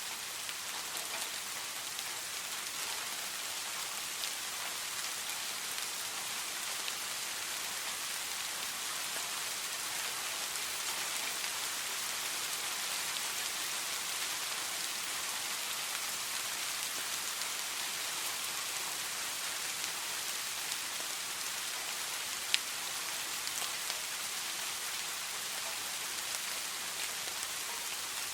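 Steady rain falling: an even hiss speckled with small drop ticks, with one sharper tick about three-quarters of the way through.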